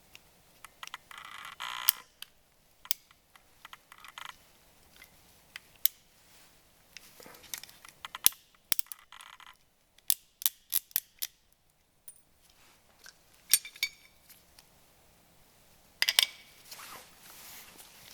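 Hand tools and small metal drum-brake parts being handled: scattered sharp clicks and clinks, a quick run of taps about ten seconds in, and a few short scraping or rustling spells.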